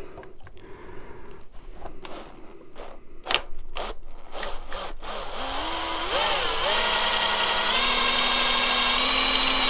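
Power drill with a 5 mm bit boring a hole through a motorcycle handlebar, for the switch housing's anti-twist pin. A few sharp clicks come first. About five seconds in the motor whine rises in pitch as the drill spins up, then it runs steadily under load, stepping slightly in pitch.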